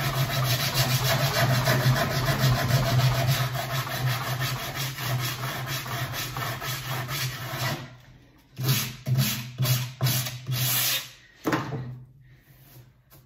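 Hand sanding along the edge of a wooden snooker table cushion, rubbed quickly back and forth. After about eight seconds it slows to a handful of separate strokes, then stops near the end.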